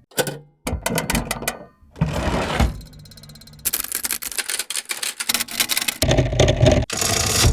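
Cash register mechanisms working: a quick run of sharp key clacks, a brief rattling whir about two seconds in, a fast fine buzz, then a dense stretch of clattering gears and levers.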